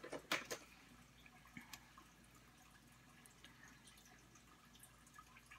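Near silence: quiet room tone, with a few faint sharp clicks in the first half-second and two more a little over a second and a half in.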